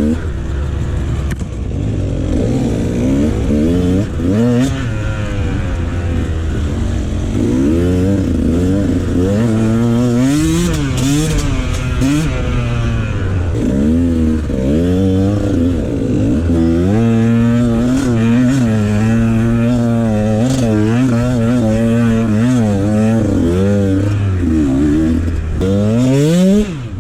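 Dirt bike engine running and being revved, its pitch rising and falling again and again, with a last sharp climb that cuts off suddenly near the end.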